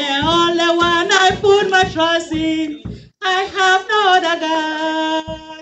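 Group singing a worship song, with long held notes and a short break about three seconds in.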